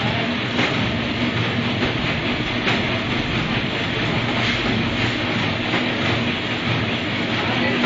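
Chikki and cake packaging machine running: a steady mechanical noise over a low hum.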